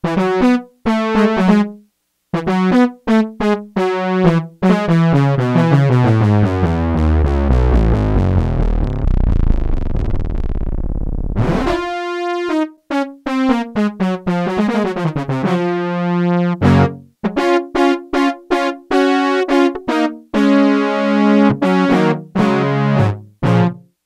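Black Corporation ISE-NIN analog polysynth playing a preset, dry with no reverb: short chord stabs, then a long run of notes falling in pitch into a deep bass that cuts off suddenly about halfway through, followed by more chords, some held and some short.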